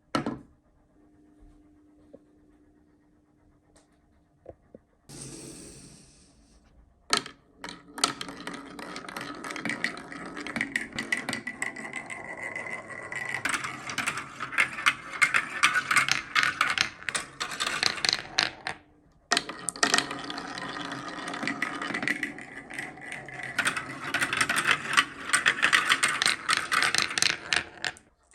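Marbles rolling and clattering down a marble run, a dense rattle of fast clicks. It starts after about five seconds of near quiet and a short rush of noise, stops briefly around two-thirds of the way through, then resumes.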